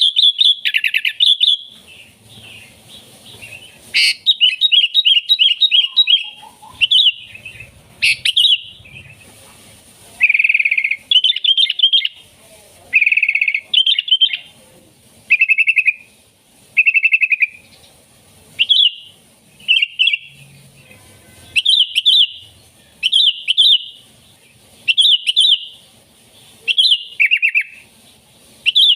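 Sooty-headed bulbul singing in loud, short, bubbly phrases, repeated about once every second or two, with a quick run of rapid notes a few seconds in.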